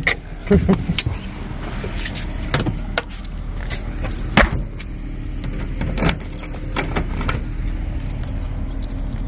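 Clicks and knocks of a phone camera being handled and carried out of a Honda Element, with the car's door being worked and keys jangling, over a steady low hum. The sharpest knocks come at the start and about halfway through.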